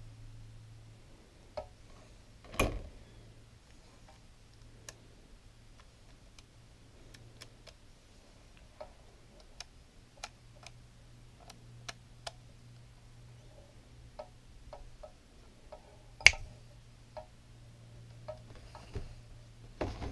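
Small irregular clicks and ticks of tweezers and fingers working the focus lever and lens ring on an opened Lomography LC-A+ camera. Two louder knocks come through, one about two and a half seconds in and one about four seconds before the end, over a faint low hum.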